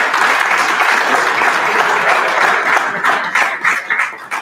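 Audience applauding a prize winner, the clapping thinning out to a few last separate claps near the end.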